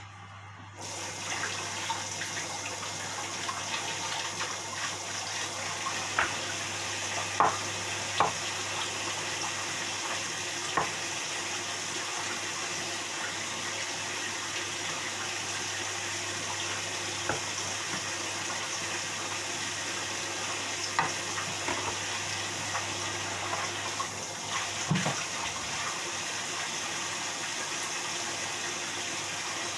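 Kitchen tap running steadily into a stainless steel sink, starting about a second in, with a few light knocks and clinks as produce is rinsed under the stream.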